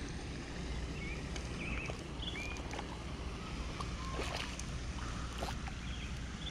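Outdoor ambience at a pond: a steady low rumble with scattered short, high chirps and a few faint clicks.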